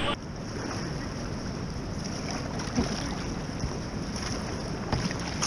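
Steady rush of river water around the kayaks, heard from a camera on the kayak, with some wind on the microphone and one faint knock a little under three seconds in.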